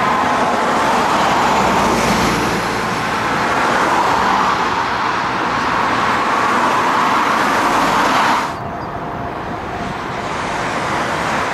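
Steady roar of the Airbus A380-861's Engine Alliance GP7200 jet engines as the airliner lands. The sound drops suddenly about eight and a half seconds in and goes on more quietly and duller.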